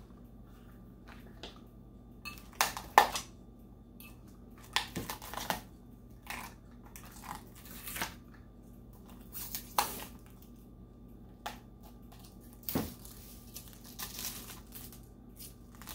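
Heat-shrunk plastic wrap and sublimation paper crinkling and tearing as they are stripped off a dog bowl after baking, in irregular crackles and rustles a second or so apart.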